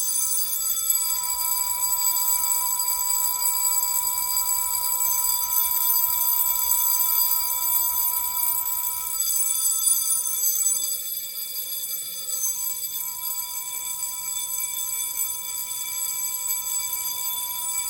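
Fire alarm supervisory bell ringing continuously, set off by turning the RTS-151 key switch: the signal of a supervisory condition on the fire alarm panel. It gets slightly quieter about eleven seconds in.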